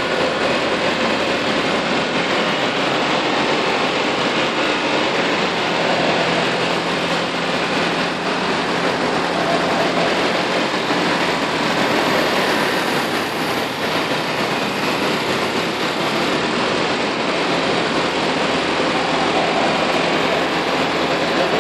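Steady mechanical running noise of a truck-mounted crane at work: the truck's engine running to power the hydraulic boom.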